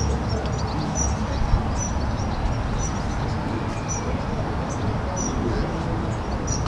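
Small bird chirping repeatedly in short high notes, about once a second, over a steady low rumble of outdoor background noise.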